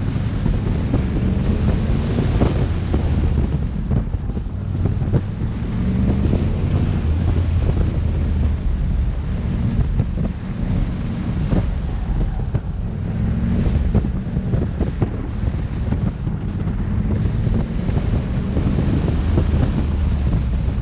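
A car's engine running around an autocross course, its low note rising and falling, under heavy wind buffeting on the microphone.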